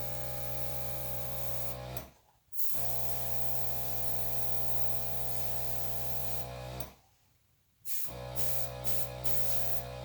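Small electric air compressor running with a steady motor hum and a hiss of blown air. It is switched off and back on twice: about two seconds in for half a second, and about seven seconds in for a second, the hum wavering a little after the second restart.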